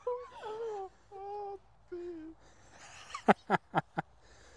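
A person's voice making three or four short wordless tones, some held and some falling, followed by a quick run of about five sharp taps or clicks.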